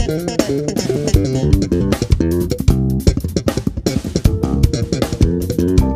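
Six-string electric bass playing a fast melodic line with a drum kit behind it, in a jazz-funk band.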